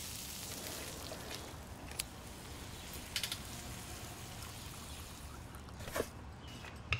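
Cooking sounds at a gas stove: a steady soft hiss with a few sharp clicks of kitchen utensils, about two, three and six seconds in.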